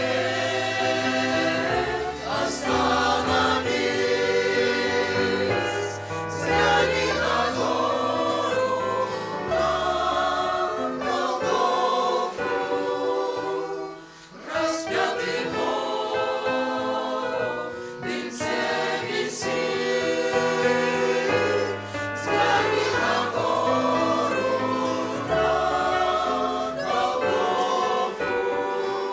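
Church choir singing a Christian song in Russian with instrumental accompaniment and a steady bass line, with a brief drop about halfway through between phrases.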